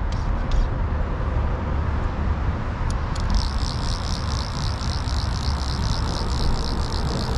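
A fly reel's ratchet clicking rapidly and evenly, starting about three seconds in, while a hooked trout is played on the line, over a steady low rumble.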